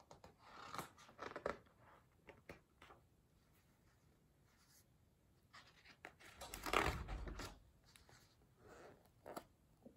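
A hardcover picture book being handled and its pages turned: faint scattered paper rustles, then a louder rustle with a low bump about seven seconds in.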